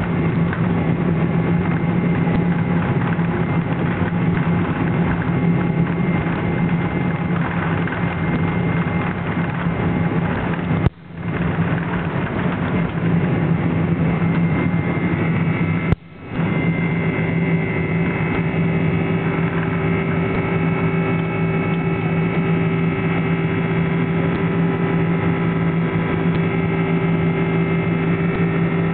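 Cabin noise of an Airbus A300's twin General Electric CF6-80C2 turbofans at takeoff power, heard from a window seat through the takeoff roll and initial climb: a steady loud roar with a deep hum. The sound drops out briefly twice, about 11 and 16 seconds in, and after the second dropout a steady engine whine comes through more clearly.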